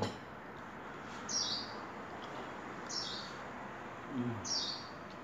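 A small bird chirping outside, three short high chirps that fall in pitch, spaced about a second and a half apart.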